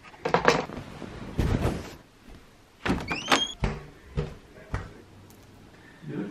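A door being opened and closed in a small room: a run of knocks and thuds, with a short rising squeak about three seconds in.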